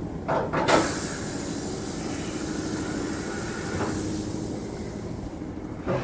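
Compressed air hissing steadily for about five seconds at a tyre-changing machine, starting suddenly after a few short metal knocks.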